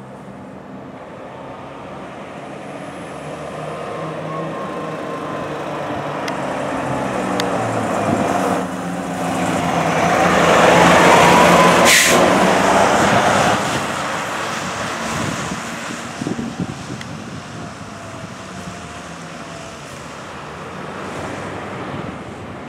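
A 2021 Spartan MetroStar fire engine's diesel engine approaching and passing close by, loudest about ten to thirteen seconds in, then fading as it drives away. A faint siren wail rises and falls throughout, with a brief sharp burst of sound as the truck goes past.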